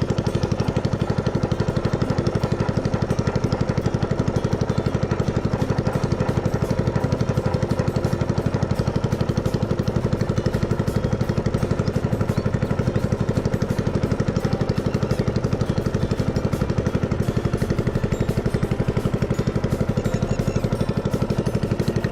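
Small boat engine running steadily at an even speed, with a fast, regular chug.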